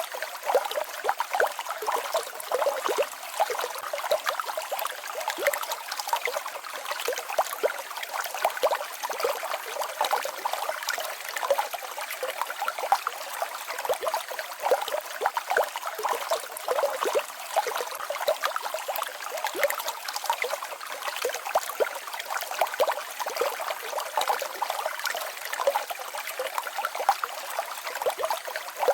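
Small mountain stream babbling over rocks in a small waterfall: a steady trickling, splashing rush of water, full of small bright splashes and little low in it.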